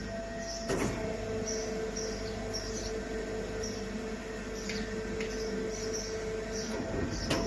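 CNC vertical machining center running with a steady machine tone. After a click about a second in, the tone drops to a lower pitch and holds, then returns to the higher pitch with another click near the end.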